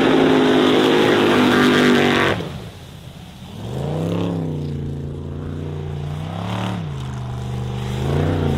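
Formula Offroad race buggy's engine at full throttle as its paddle tyres throw water while it skims across a river. After a sudden cut about two seconds in, the engine is heard further off, revving up and falling back three times.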